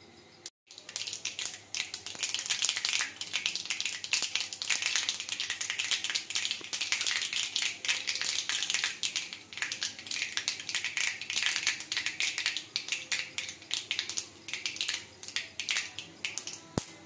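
Whole spice seeds sizzling and crackling in hot oil in a wok: a dense, steady patter of small pops that starts just under a second in, the seeds spluttering as the oil comes up to frying heat.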